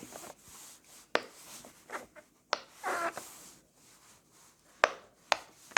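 Pop-it fidget toy being pressed, its bubbles popping one at a time with sharp clicks, about six over the few seconds, from its louder side.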